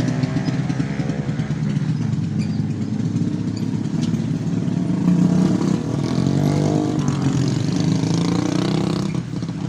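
Road traffic passing close by: vehicle engines running past one after another, their pitch sliding as each goes by, over steady tyre and road noise.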